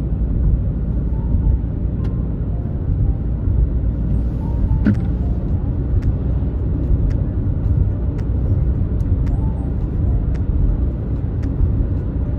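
Steady low road and engine rumble of a car driving at highway speed, heard inside the cabin. Light clicks come now and then, with a sharper one about five seconds in.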